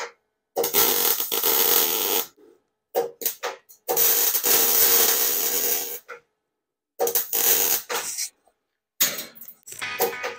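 MIG welder arc crackling on stainless steel in repeated trigger bursts: several runs of one to two seconds, with short stuttering tacks and brief silences between them.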